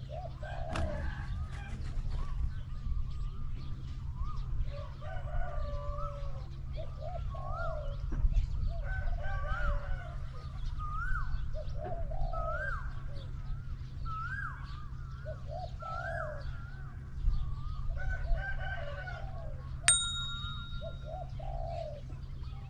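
Spotted doves cooing repeatedly in low, rolling phrases, a caged decoy dove and a wild dove calling in the open. Another bird's higher, repeated rising-and-falling chirps run alongside. A single sharp metallic ping rings out near the end.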